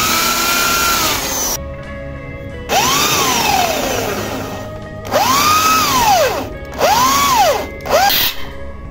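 Hand-held electric drill boring into an aluminium bicycle rim, run in about five bursts, its motor whine rising in pitch as the trigger is squeezed and falling away as it is let off; the last burst is brief.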